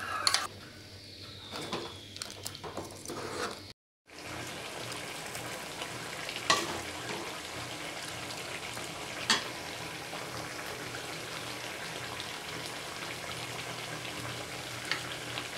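Chicken curry simmering and bubbling in a metal pan, a steady sizzling hiss. After a brief gap, a ladle stirs the curry in a steel pot, with two sharp clinks of metal on metal.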